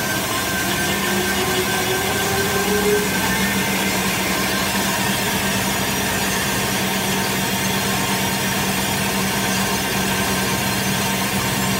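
Stretch-film pre-stretch rewinding machine running at speed, its rollers turning and film winding onto a roll: a steady mechanical noise with a constant hum.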